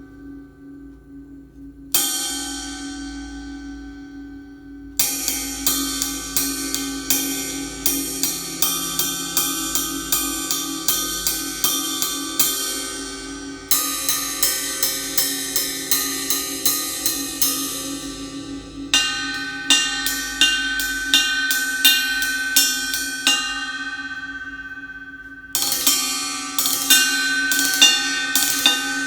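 Zildjian Planet Z 20-inch ride cymbal struck with a drumstick: one hit left to ring out, then a steady ride pattern of a few strokes a second, with accented crashes restarting the pattern several times. The tone is sharp and bright, with a clear ping in the later passages.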